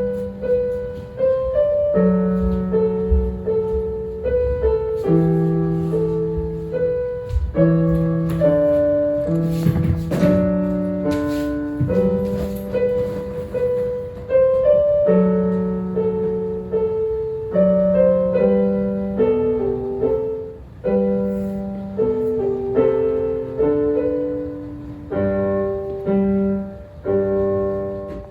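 Piano being played: a slow melody of single notes over held bass notes, in a steady practice tempo.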